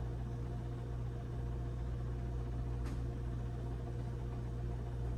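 Steady low hum, with a faint click about three seconds in.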